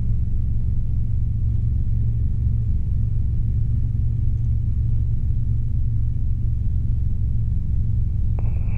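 Robinson R22 helicopter's piston engine and rotors running steadily in flight, heard as an even, low drone.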